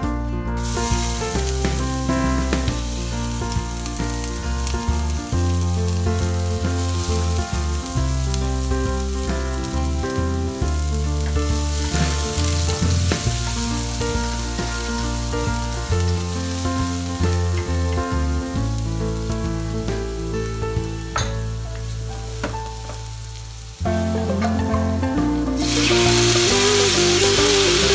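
Minced garlic sizzling in hot oil as it is stirred with a wooden spatula, with background music playing under it. Near the end the sizzle grows louder as raw marinated chicken pieces go into the hot pot.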